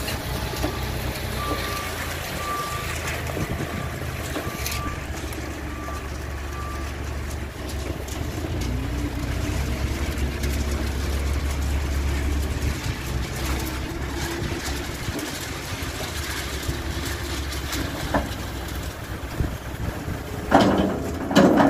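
Diesel engine of a JCB Loadall telehandler running steadily, its note rising and falling in the middle as the boom works. A reversing alarm beeps at a steady pace over the first several seconds. A short burst of louder knocking noise comes near the end.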